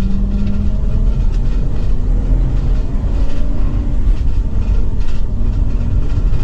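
Ford E450 motorhome driving down the road, heard from inside the cab: a steady low rumble of engine, tyres and chassis with a few faint ticks and rattles.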